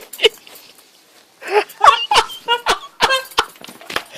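Short, broken bursts of people's voices without clear words, starting about one and a half seconds in after a near-quiet pause, with a few sharp clicks.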